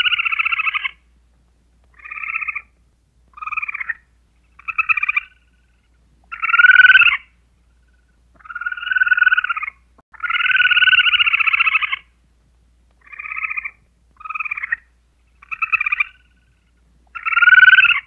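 An animal's rapid pulsed trills, about a dozen, each lasting from half a second to nearly two seconds and repeated every second or two.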